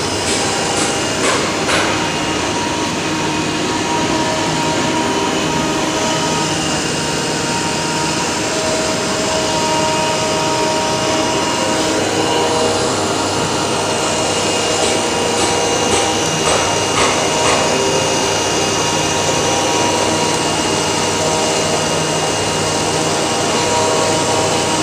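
Flatbed CNC cutting machine for PP hollow sheet running: a steady loud rushing noise, with a motor whine that shifts in pitch and a few clicks.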